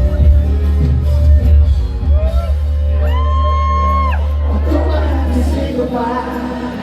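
Live R&B pop music played loud through a PA system, with heavy bass and a held high vocal note about three seconds in, and a crowd whooping and shouting. The bass drops out near the end.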